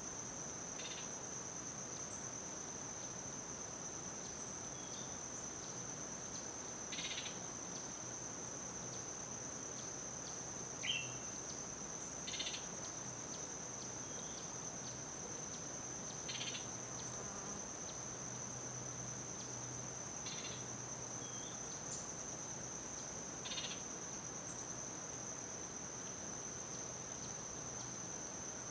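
Steady, high-pitched insect drone, with about eight short chirps scattered through it; the loudest is a quick chirp about eleven seconds in.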